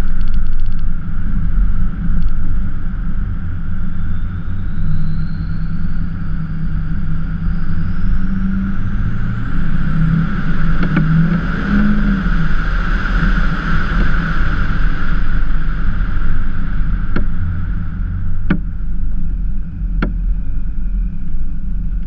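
Ford F-350 pickup truck driving on a rural road: steady engine and tyre rumble, with a thin high whine that climbs slowly in pitch over several seconds and then drops away. Three sharp knocks come near the end.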